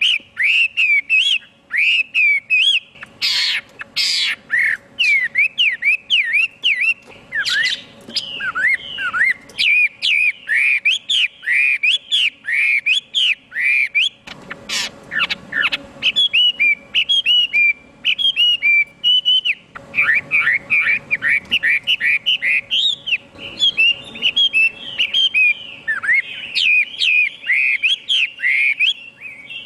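Chinese hwamei (họa mi) singing a long, loud song of rapid, repeated whistled notes that sweep up and down, with a few brief pauses. A faint steady hum sits underneath.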